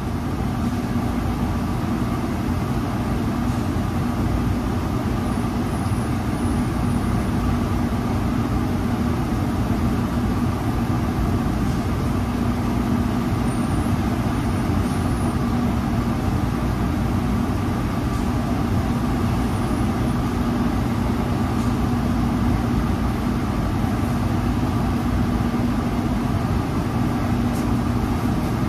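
Steady drone of a commercial kitchen exhaust hood fan: a constant low hum with a fainter, higher tone above it.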